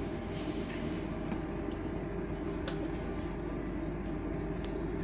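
Cabin noise inside a Siemens-Duewag U2 light-rail car under way: a steady low rumble of wheels on rail and running gear. Two faint sharp ticks come through, one about halfway through and one near the end.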